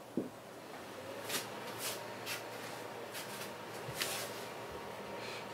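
Whiteboard marker strokes and clothing rustle: a few short, scratchy brushing sounds about a second and two seconds in, and another near four seconds, over a faint steady room hum.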